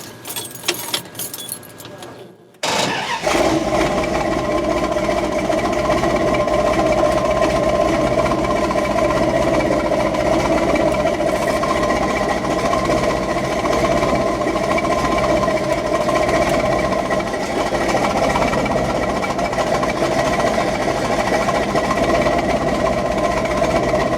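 A few light clicks and knocks, then about two and a half seconds in an engine-like mechanical sound cuts in abruptly and runs steadily at an even, unchanging pitch.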